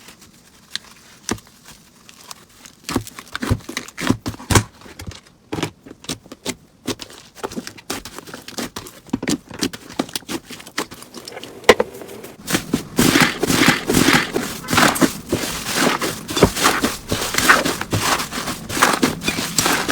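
Slime being squeezed and worked by hand: scattered sticky clicks and pops at first, then, about two-thirds of the way through, a dense run of crackling and crunching.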